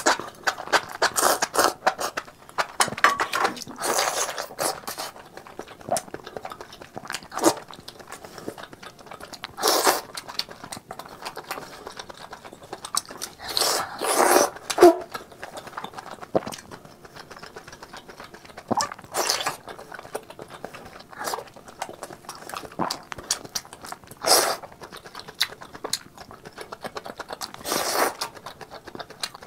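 Close-miked eating sounds: enoki mushrooms slurped, then pieces of spicy squid bitten and chewed with wet smacking mouth noises. The sounds come in irregular bursts, the louder ones every few seconds.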